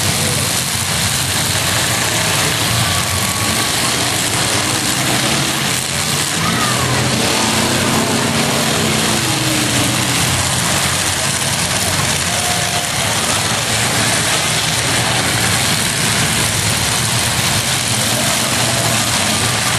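Demolition derby trucks' engines running and revving together in a steady, loud, dense din, with no sharp crashes standing out.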